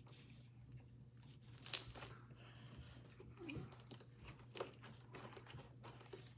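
Scattered crinkling, squishing and sharp crackles from hands working homemade glue slime while heart confetti is mixed in. One louder crackle comes just under two seconds in, over a faint steady low hum.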